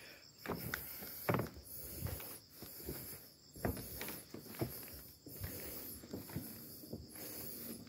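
Footsteps on the wooden walkway planks of a railway bridge, a soft knock with each step at roughly one step a second.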